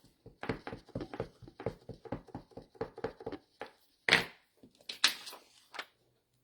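Rapid tapping, about seven taps a second, as a clear photopolymer stamp is dabbed on an ink pad and stamped off onto scrap paper to condition the new stamp. Near the end come a couple of louder scuffs.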